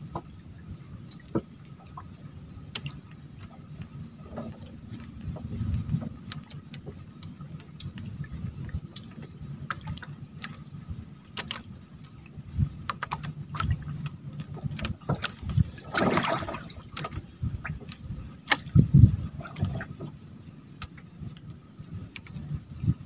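Water sloshing and lapping against a small fishing boat, with scattered light knocks and clicks. There is one louder splash-like rush about sixteen seconds in and a low thump a few seconds later.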